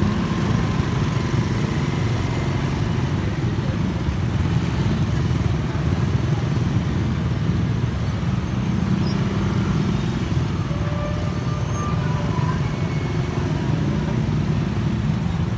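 Motorcycle and scooter engines running in slow, crowded street traffic, heard from a motorcycle riding among them: a steady low engine drone.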